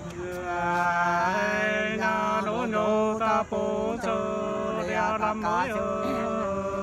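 Two men singing a Nùng sli folk song together without accompaniment, in long drawn-out, wavering notes that glide from one pitch to the next, the two voices held close together.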